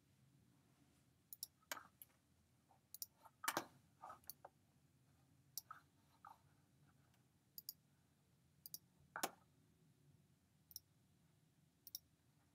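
Faint, irregular computer mouse clicks, about a dozen spread over the span, a couple of them louder than the rest, over a quiet room hum.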